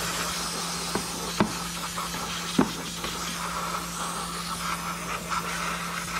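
Aerosol brake cleaner spraying in a steady hiss, washing spilled coolant off the engine around the thermostat housing. A few light knocks come about one, one and a half, and two and a half seconds in.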